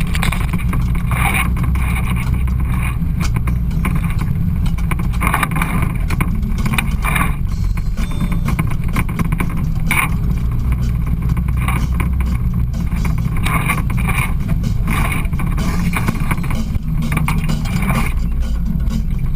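Side-by-side UTV engine running steadily while driving on a rough trail, with short rattles every second or two.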